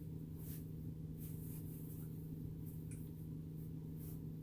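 Steady low hum in a semi-truck cab, with a few faint, brief hissy noises over it.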